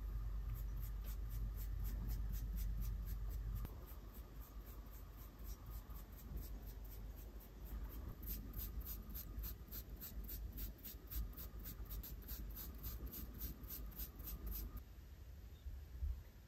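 A flat brush stroking water-thinned white craft glue onto a strip of fabric, a soft scratchy brushing at about three to four strokes a second that stops shortly before the end.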